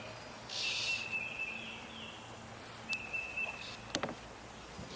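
An insect in the swamp calls over and over, about once every two and a half seconds. Each call is a short hiss followed by a steady, high-pitched buzz lasting about a second. Two sharp clicks come about three and four seconds in.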